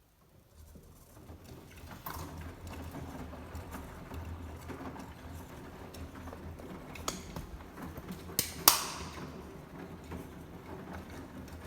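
Beko washing machine running with a steady low hum, scattered clicks and two sharp knocks close together about two-thirds of the way in.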